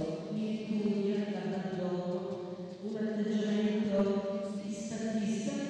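A woman singing unaccompanied into a microphone: a slow melody of long held notes, in two phrases with a short breath about three seconds in.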